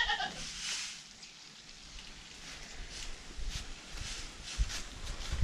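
A high, wavering call trails off just at the start, followed by faint rustling and light scattered taps.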